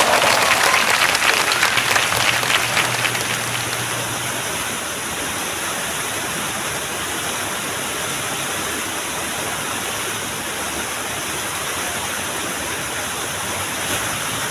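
Steady rush of water from a small waterfall, with a louder crackling patch in the first few seconds.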